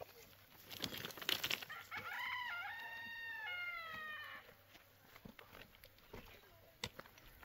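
A rooster crowing once, a long call of about two seconds that steps up and falls away at the end. It is preceded about a second in by a short burst of knocking.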